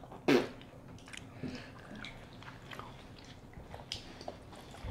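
Close-miked chewing of doughnut: soft wet mouth sounds and small clicks. A short, sharp, louder sound comes about a third of a second in.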